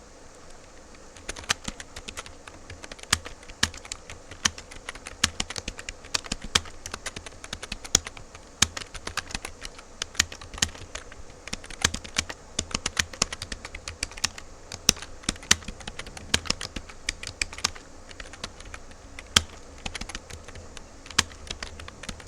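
Fast typing on a computer keyboard: rapid, irregular key clicks that start about a second in and keep going.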